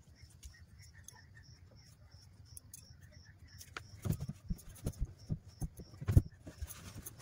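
Soft, irregular knocks and thumps of handling, starting about four seconds in, with the loudest a little after six seconds. Under them a faint high chirp repeats evenly, about three to four times a second, in the first half.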